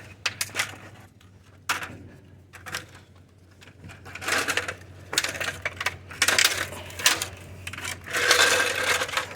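Aluminum screen-door frame rattling and clinking as the screen is torn out of it: scattered sharp clicks and several short bursts of scraping and rattling, the longest near the end.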